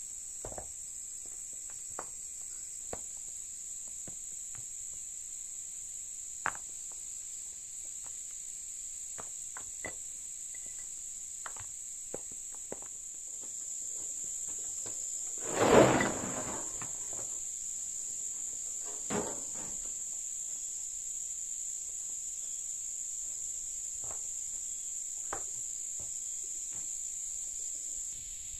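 Stones knocking as they are set down on other stones, a clack every second or two, over a steady high insect drone. About halfway through comes the loudest sound, a longer clatter of rocks being tipped from a wheelbarrow, then a smaller clatter a few seconds later.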